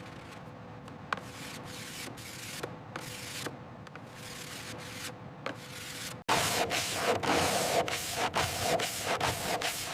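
Sanding by hand: rhythmic rubbing strokes, spaced out at first, then suddenly louder and quicker about six seconds in.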